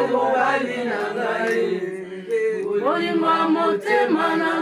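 A group of women singing together unaccompanied, a slow chant-like song with long held notes and sliding pitches.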